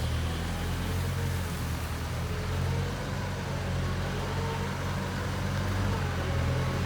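JCB 3CX backhoe loader's diesel engine running steadily, with a faint whine above it that wavers up and down in pitch.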